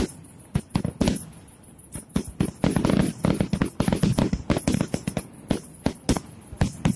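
Fireworks display: aerial shells bursting in a rapid, irregular string of sharp bangs, busiest in the middle, heard through a mobile phone's microphone.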